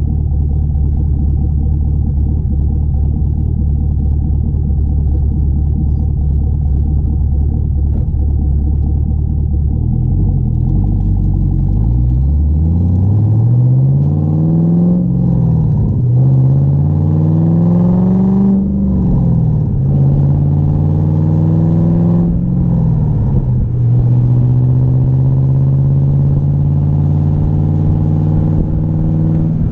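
Camaro's engine idling steadily, then the car pulls away and accelerates: the engine pitch climbs and drops back three times as it shifts up through the gears, then settles into a steady cruise.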